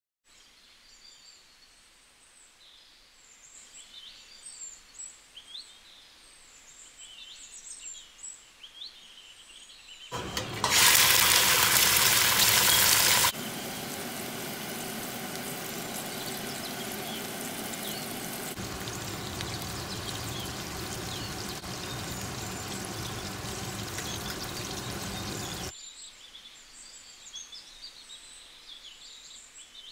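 Birds chirping faintly in the background, then about ten seconds in a sudden loud sizzle as raw chicken pieces go into hot oil in a steel pot. After a few seconds it settles into a steady frying sizzle, which cuts off near the end, leaving the birdsong again.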